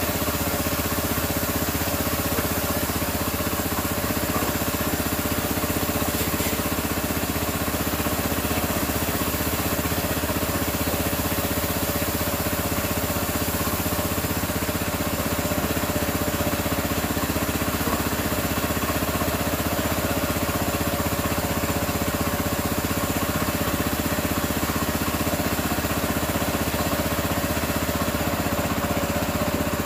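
The 6.5-horsepower gasoline engine of a belt-driven pressure washer running steadily, with the hiss of the high-pressure water spray. The pump pulleys have just been aligned so that it runs quietly.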